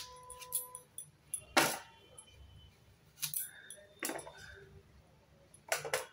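Peeled arum root (maan kochu) being sliced against the curved blade of a bonti: a handful of short, sharp cutting strokes, the loudest about a second and a half in.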